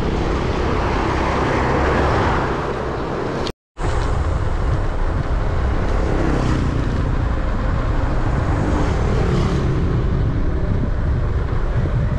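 Road traffic passing on a highway, heard over heavy wind rumble on the action-camera microphone of a moving bicycle. The sound cuts out completely for a split second about three and a half seconds in, then carries on as before.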